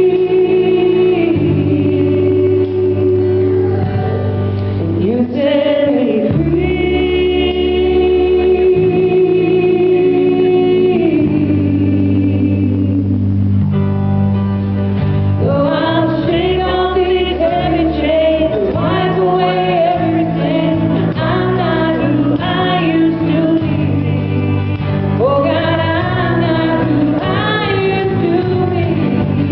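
Gospel singing with sustained chords underneath; the bass changes every few seconds. The singing grows livelier, with wavering sung notes, from about halfway in.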